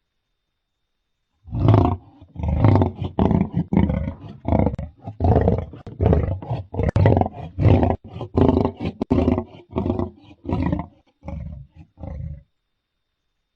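Lion roaring: silence, then about 1.5 s in a run of short, deep roars, about two a second, that weaken toward the end and stop about 12 s in.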